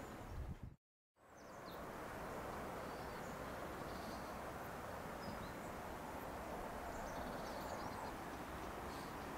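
Outdoor countryside ambience: a steady background hiss with faint, scattered bird chirps. The sound drops out briefly about a second in.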